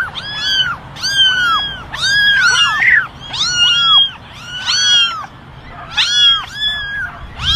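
A litter of ginger kittens mewing together: short, high-pitched mews that rise and fall, overlapping one another several times a second.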